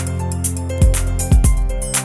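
Background music with a steady beat: held instrumental notes over pairs of deep, dropping drum hits and light cymbal ticks.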